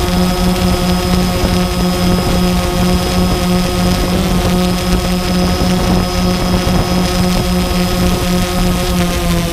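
Multirotor drone's electric motors and propellers humming steadily at a constant pitch, heard from the drone-mounted camera, with a low rumble of noise underneath.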